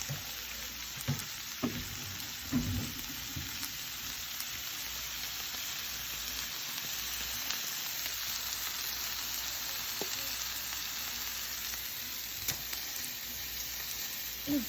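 Food sizzling in a frying pan: a steady hiss, with a few light knocks of a utensil against the pan or counter.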